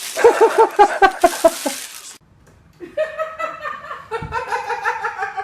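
A high-pitched person laughing in quick, rapid bursts, then a second, longer run of laughter after a short pause.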